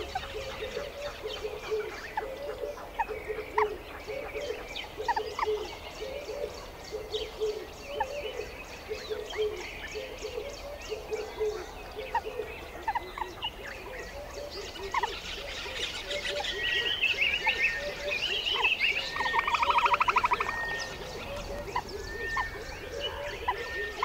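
A chorus of frogs croaking and birds chirping, with short calls repeating throughout and a louder buzzy trill about twenty seconds in.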